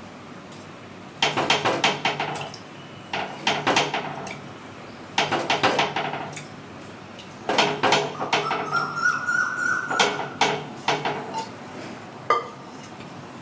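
Metal spoon clinking and scraping against a paniyaram pan while its cups are greased with oil. It comes in four runs of quick taps and rattles, the last one the longest, with a single clink near the end.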